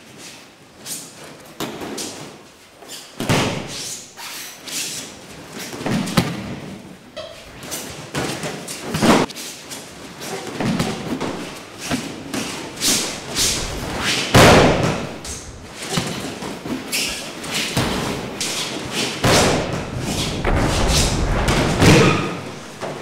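Repeated heavy thuds of a person thrown and landing in breakfalls on padded martial-arts mats, with quieter scuffs and shuffles between the throws.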